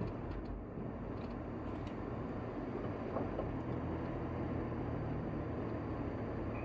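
Steady engine hum and road noise of a vehicle being driven, heard from inside the cab.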